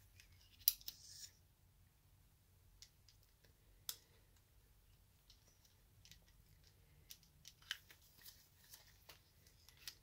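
Faint, scattered clicks and light scrapes of small steel parts of a Colt 1908 vest pocket pistol being handled during disassembly and reassembly, with sharper clicks about a second in, near four seconds and near eight seconds.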